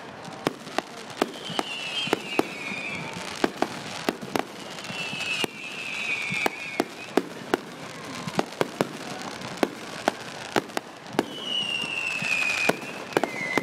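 Fireworks going off, a steady run of sharp pops and bangs. Three whistling fireworks sound through it, each whistle a second or more long and falling in pitch.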